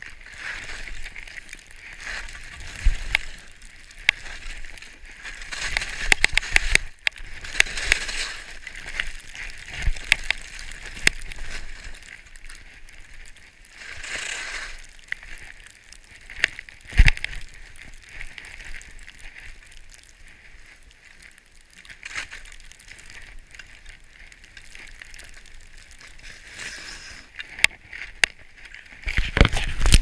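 Skis sliding through fresh snow: a hiss that swells and fades again and again, with sharp scrapes and clatters scattered through it.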